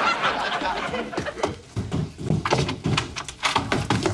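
Quick, heavy footsteps running up wooden stairs, a rapid series of thuds, then a door pushed open near the end.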